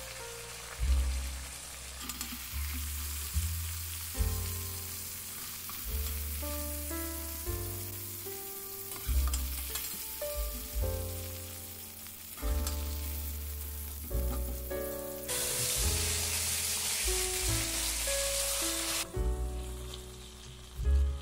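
Hot oil sizzling in a frying pan with some stirring as fried friggitelli peppers are lifted out. About fifteen seconds in, the sizzle turns louder for a few seconds as tomato wedges go into the oil. Background music plays throughout.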